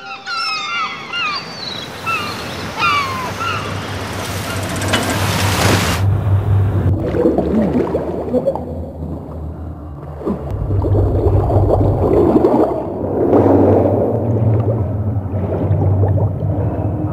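Seagull cries over the wash of the sea for the first few seconds. About six seconds in, the hiss cuts off and gives way to underwater bubbling and gurgling over a low rumble, which grows louder in the second half.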